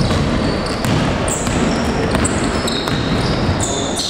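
Basketball being played on an indoor court: a ball bouncing, and sneakers squeaking several times in short high-pitched chirps.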